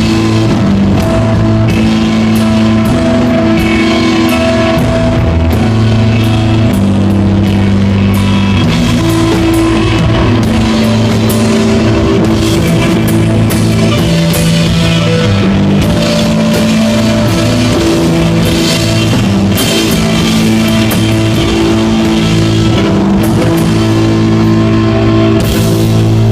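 Live instrumental desert rock: electric guitar, bass guitar and drum kit playing loud, with held bass notes changing every second or two under steady drum and cymbal hits.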